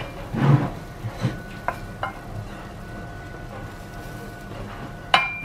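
Wooden spoon stirring diced peppers, onions and salami in a stainless steel saucepan, with a few scraping strokes over the food sizzling in rapeseed oil on low heat. About five seconds in, a single sharp knock with a short ring, the spoon striking the metal pan.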